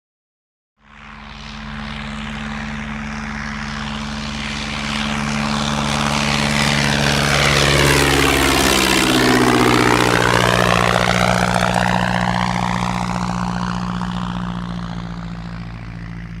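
Propeller airplane flying past: its engine drone grows louder, passes overhead about nine seconds in with the pitch dropping, then fades away.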